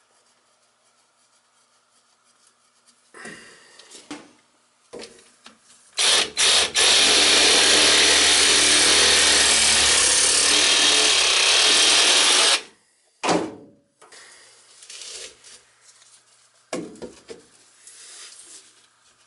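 Reciprocating saw cutting through PVC drain pipe: two quick blips of the trigger, then about six seconds of steady cutting that stops abruptly, followed by one more short burst. Light knocks and clicks of the pipe being handled come before and after.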